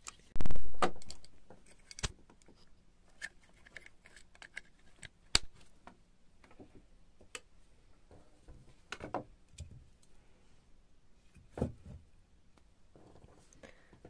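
Handling noise from a moisture meter and its corded two-pin probe: a loud thump about half a second in, then scattered sharp clicks and light knocks.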